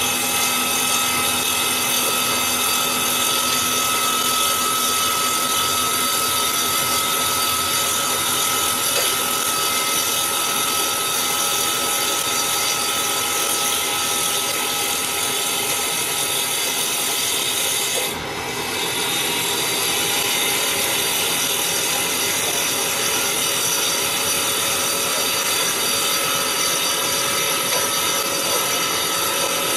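Circular saw blade on a CNC wood lathe cutting a spinning wooden baseball bat blank, set to 3 mm per pass: a loud, steady sawing noise with a constant motor and blade hum. The sound dips briefly about eighteen seconds in, then the cutting carries on.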